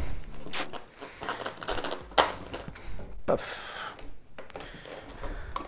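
Rubber bands being stretched over a foam RC plane wing and hooked onto the fuselage, giving a few sharp snaps and some rustling handling noise.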